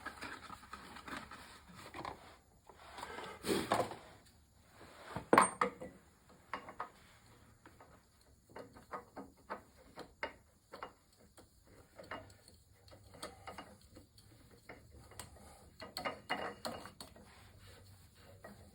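Hand tools and metal engine parts being handled while an oil filter and oil cooler fittings go on: scattered small clicks and knocks, with one sharp knock about five seconds in and a run of quick ticks later on.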